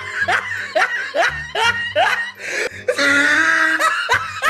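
A person laughing in quick repeated bursts, with a held steady tone lasting about a second near three seconds in.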